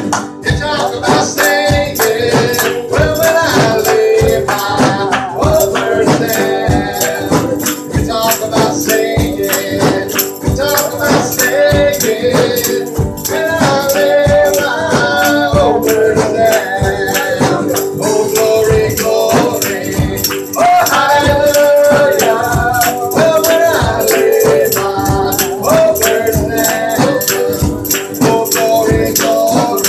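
Live gospel music: a man singing lead through a microphone and PA speaker over a drum kit keeping a steady, driving beat, with shaken percussion in the mix.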